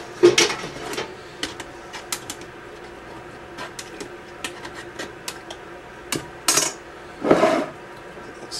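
A spoon clinking and knocking against a canning funnel and glass jars as the jars are filled, with a sharp knock just after the start and scattered lighter taps. Two short scraping sounds follow after the middle.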